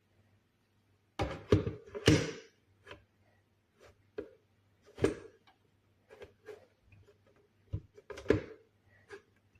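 Irregular knocks and clunks of kitchen items being handled, with the loudest cluster of knocks about a second and a half in and more spaced out after that. No blender motor runs.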